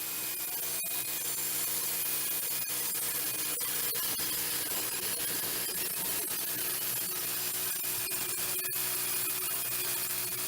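Wood-Mizer portable band sawmill running steadily, its band blade sawing through a black walnut log.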